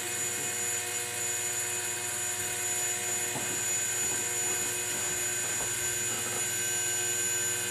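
Seagate laptop hard drive running with its cover off, platter spinning: a steady whir with a high, constant whine from the spindle motor.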